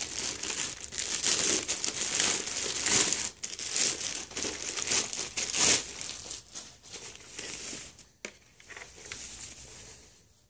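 Clear plastic packaging bag crinkling as a helmet is worked out of it, dense and loud for the first six seconds. Then a thinner, quieter rustle as a foam wrap sheet is peeled off, fading out near the end.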